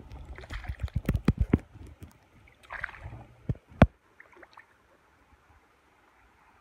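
A small barbel hooked on the line splashes at the surface of a river pool. A run of sharp knocks and splashes comes in the first two seconds and again around three to four seconds, then the water goes quiet.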